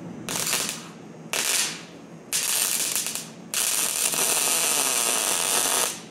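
MIG welder arc crackling as holes in thin sheet steel are filled with weld (plug or spot welds): four welds, the first two about half a second each, the third about a second, the last the longest at about two and a half seconds.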